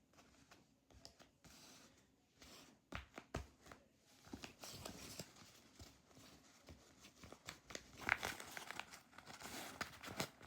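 A homemade squishy toy being squeezed and kneaded by hand, giving faint, irregular crinkling and rustling with small crackles, louder around three seconds in and again near eight seconds.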